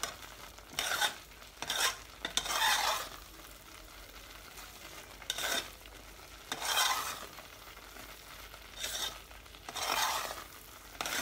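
A utensil stirring and scraping a thick, drying grated-carrot and milk mixture in a stainless-steel saucepan, in irregular strokes a second or two apart. The mixture is being cooked down near the end and kept moving so that it does not catch on the bottom.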